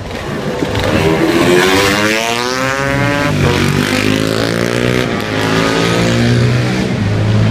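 Classic racing motorcycle engines accelerating hard along the track: the engine note climbs steeply, drops sharply about three seconds in as a bike goes past, then another lower engine note carries on, revving up in short rises.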